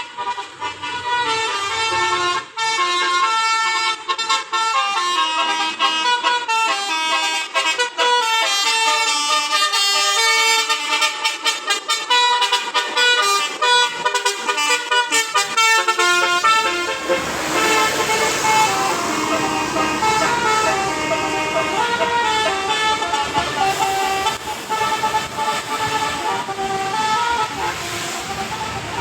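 Basuri 'telolet' multi-tone musical air horn on a bus playing a fast tune of quickly changing notes. About seventeen seconds in, a broad rushing noise joins beneath the horn.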